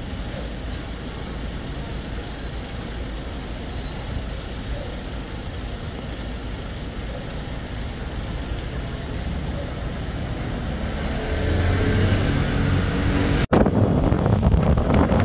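Street traffic ambience: a steady hum of distant vehicles, then an engine growing louder about eleven seconds in. A sudden cut near the end switches to louder road and engine noise from moving along a busy road among motorcycles.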